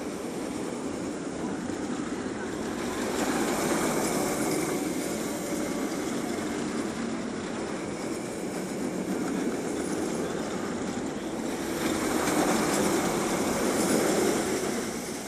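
Steel roller coaster train running along its track: a rushing rumble that swells about four seconds in and again near the end as the train passes.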